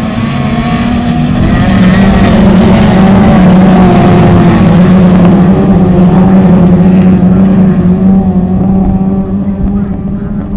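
A pack of autograss racing cars, small hatchbacks, racing past on a dirt track with their engines at high revs, several engine notes heard at once. The sound builds over the first couple of seconds, holds at its loudest through the middle, and fades near the end as the cars draw away.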